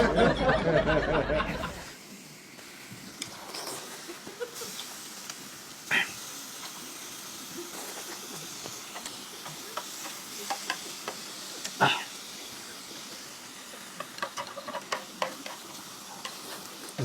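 Chopsticks and bowls clicking and knocking at a meal over a steady faint hiss, with two sharper knocks about six and twelve seconds in. A voice is heard in the first two seconds.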